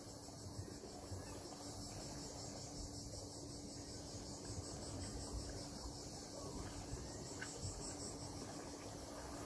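Insects chirring in a steady high-pitched chorus, with a faint steady low hum underneath.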